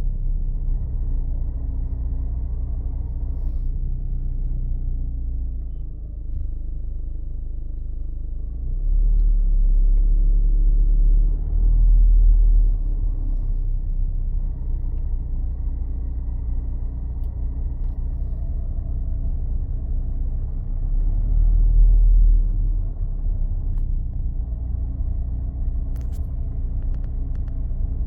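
Škoda Octavia Mk3 with the 1.6 TDI (CLHA) four-cylinder diesel, driven in first or second gear off the throttle. It makes a steady low rumble with held humming tones that swells louder a few times. This is the strange noise the owner places at the front left of the car, and a new clutch set has not cured it.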